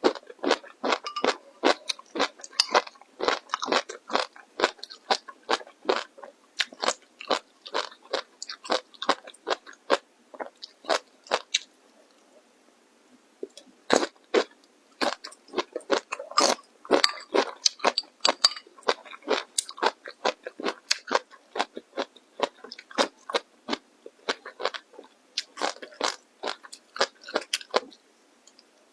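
Close-miked crunchy food being bitten and chewed: rapid runs of sharp, crisp crunches, stopping briefly about halfway through and again a few seconds before the end.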